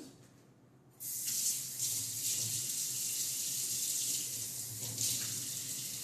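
Kitchen faucet turned on about a second in, water running steadily from the tap into a stainless steel sink.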